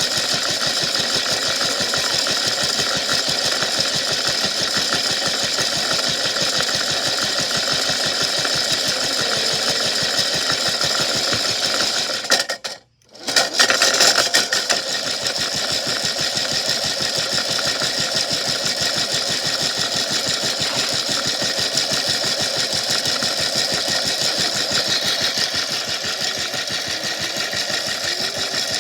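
Tide toy washing machine running with a big rock inside, a steady rapid mechanical rattle from its small motor and tumbling drum. The sound cuts out for a moment about halfway through, then starts again.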